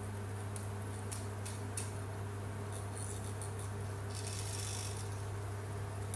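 Marker tip scratching and tapping on paper in short strokes: scattered ticks in the first two seconds and around three seconds, then a brief scratching about four seconds in. A steady low hum runs underneath.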